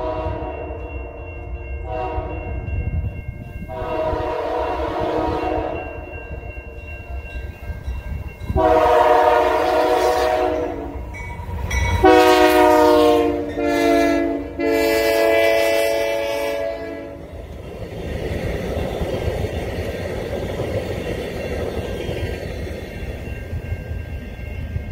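Union Pacific GE AC4400CW diesel locomotive sounding its air horn in a series of long blasts, the loudest and longest in the middle. The horn is followed by the steady rumble of the passing train on the rails.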